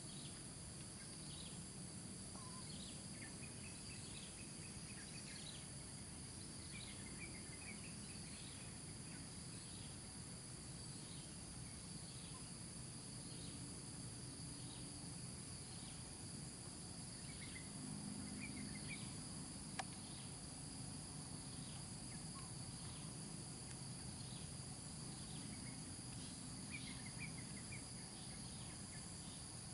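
Faint outdoor insect chorus: a steady high-pitched drone with short chirps repeating about every second and a half. Brief trilled bird-like notes come a few times, and there is one sharp click about two-thirds of the way through.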